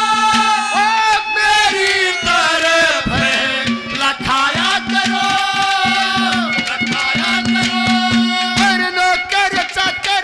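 Live Haryanvi ragni folk music: a wavering melody line over quick hand-drum strokes.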